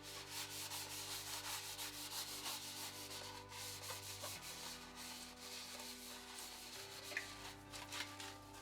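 Rapid, irregular scrubbing strokes of something being rubbed clean by hand, over background music with long held notes.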